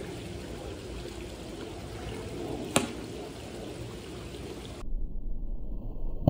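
Water trickling steadily into a swimming pool from a water feature, with one sharp pop of a blowgun firing a razor broadhead dart about three seconds in. About five seconds in the sound switches to a low hum.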